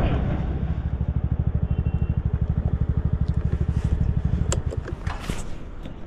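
Motorcycle engine idling, a steady low pulsing at about a dozen beats a second, fading out about five seconds in, followed by a few light clicks.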